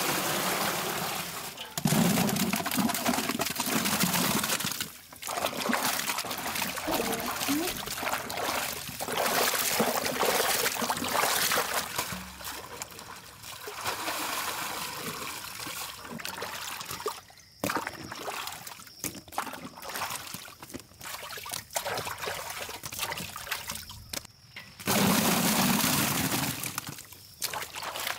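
Water pouring and splashing into a large metal pot, then sloshing as pomegranates are washed by hand in the water. It comes in several stretches broken by sudden cuts.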